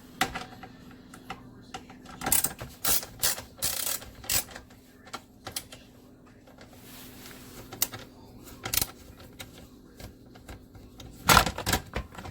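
Irregular plastic clicks, taps and knocks from handling and fitting a dishwasher's touchpad control panel and its parts. The clicks come in a busy flurry about two to four seconds in and again with a loud clatter near the end, over a faint steady hum.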